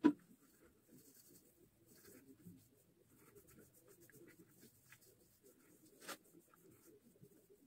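Faint scratchy rustling of fingertips rubbing and patting face cream into the skin, with a sharp knock right at the start and a click about six seconds in.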